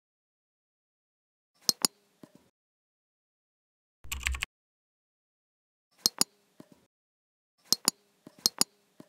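Computer mouse button clicks, mostly sharp double-clicks in four pairs a few seconds apart, some followed by a fainter single click. About four seconds in there is one short, dull thump with a low rumble.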